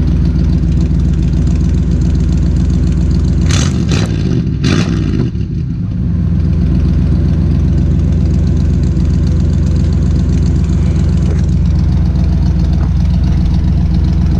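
1964 Chevy Impala's engine idling steadily through an exhaust with one side fitted with a clamped-on 18-inch Cherry Bomb glasspack muffler. About four seconds in there are a few sharp clicks and a brief dip in loudness, then the steady idle carries on.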